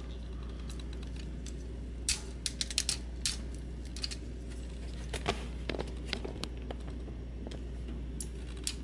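Plastic joints and parts of a transforming action figure clicking as they are folded by hand: a quick run of clicks about two seconds in, a few more around five to six seconds in, and one more near the end.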